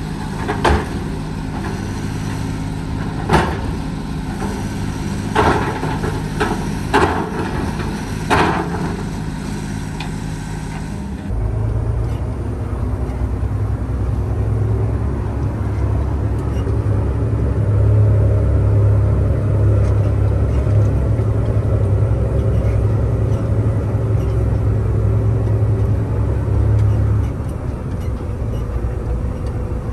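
Heavy diesel machinery at work loading a dump truck: engines running steadily, with about six sharp knocks over the first ten seconds or so. About eleven seconds in, the sound changes abruptly to a deeper, louder, steady engine drone, which eases a few seconds before the end.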